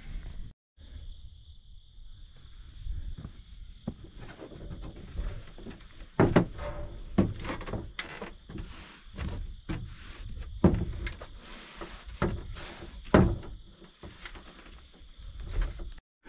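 Thumps, knocks and shuffling as a person climbs into and moves about a pickup truck bed under a camper shell. Behind it runs a steady high insect chirring.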